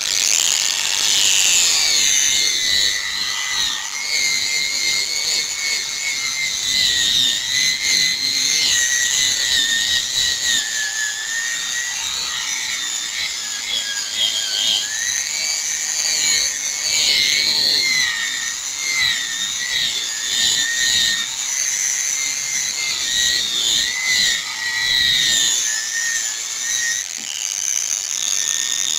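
Handheld electric power tool with a foam-backed sanding disc running steadily with a high whine whose pitch wavers slightly under load, wet-sanding a yellowed plastic motorcycle headlight lens with fine-grit sandpaper.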